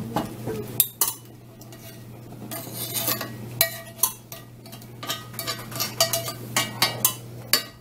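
A metal spoon scraping and clinking against a skillet as thick meat sauce is scraped out into a pot of spaghetti: a string of irregular sharp clinks and scrapes. A steady low hum sits underneath.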